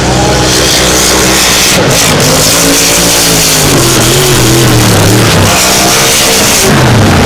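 Supercharged alcohol-fuelled race-boat engines running flat out as the boats race past. The engine note wavers and falls in pitch as a boat goes by, about halfway through and again near the end.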